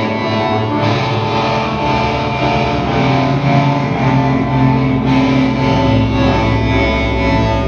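Improvised instrumental music built on a baritone electric guitar: a dense wash of sustained, droning tones. Deep low notes swell in about four seconds in.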